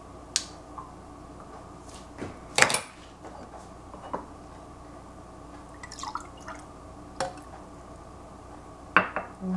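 Scattered light clinks and knocks of kitchenware, a metal spoon against a glass jar and a tin and ceramic yogurt pots on a tiled counter, the loudest a ringing clink about two and a half seconds in.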